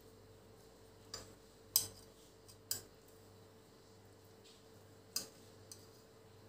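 Metal kitchen tongs clicking against a stainless steel pot and against each other as they lift a cooked stuffed vine leaf roll: about six light, sharp metallic clicks, the loudest near two seconds in.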